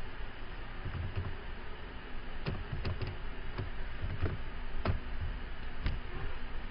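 Scattered computer keyboard keystrokes, a few irregular clicks over a steady background hiss.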